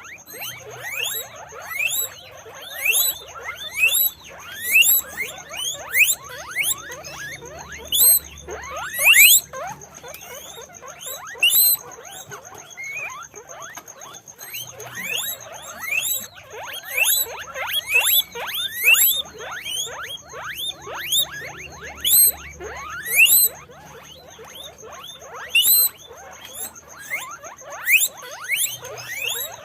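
Several guinea pigs squeaking together: short, rising whistle-like calls, several a second and often overlapping, some much louder than others.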